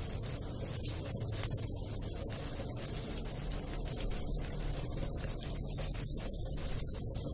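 Hot oil sizzling and crackling steadily around batter-coated brinjal (eggplant) slices shallow-frying in a pan.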